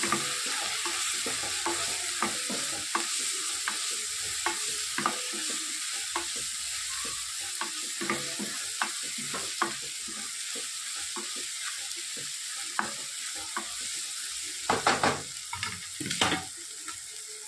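Chopped onion, tomato and green chilli frying in oil in a nonstick kadai, with a steady sizzle under the irregular clack and scrape of a spoon stirring in freshly added ground spices. There are a few louder knocks near the end.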